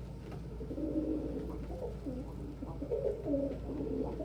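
Pet pigeons cooing, a run of low coos following one another throughout.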